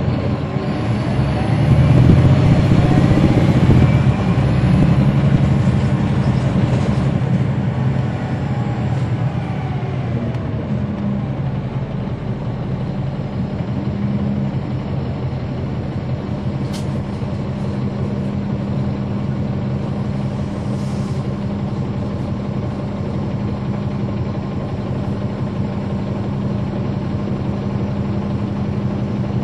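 Caterpillar C13 diesel engine of a NABI 40-foot transit bus, heard from on board. It runs louder with rising pitch for a few seconds near the start, then settles into a steady low hum.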